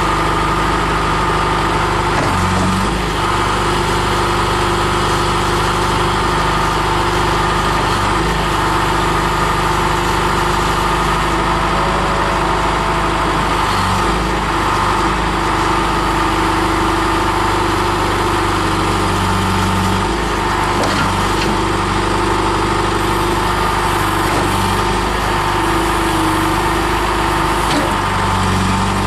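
1999 John Deere 310E backhoe loader's four-cylinder diesel engine running steadily, its low note shifting slightly every few seconds.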